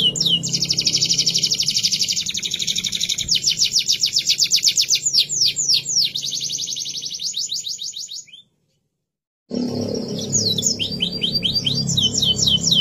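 Domestic canary singing a long, fast trilling song of rapidly repeated downward-sweeping notes. About eight seconds in, the song fades, cuts to a second of silence, then starts again.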